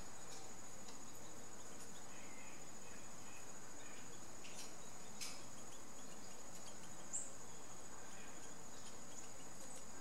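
Insects singing in the background: a steady high-pitched drone, with a few faint ticks.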